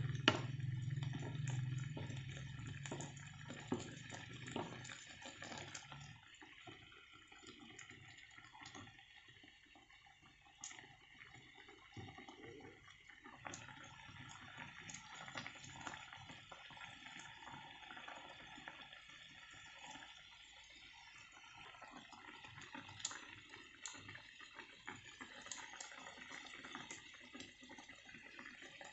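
Thick curry sauce simmering and bubbling in a frying pan, with a wooden spatula now and then clicking and scraping against the pan.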